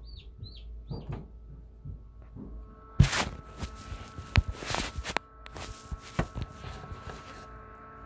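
Newly hatched chick peeping a few times in the first second over the steady hum of the incubator's fan. From about three seconds in, loud rustling and sharp knocks take over, the loudest knock coming first.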